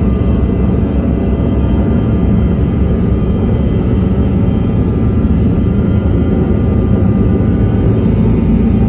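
Bombardier CRJ-200's rear-mounted GE CF34 turbofan engines running steadily, heard from inside the cabin: a dense rumble with a steady whine over it, growing slightly louder near the end, as the jet rolls on the ground.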